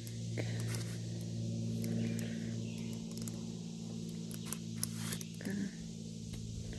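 Footsteps and small scrapes and clicks of someone walking a woodland trail, over a steady low hum.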